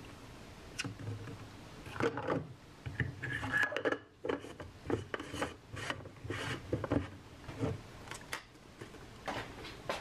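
Ice cubes rattling and scraping inside a plastic tumbler as a straw stirs an iced latte, in a run of short strokes about one or two a second.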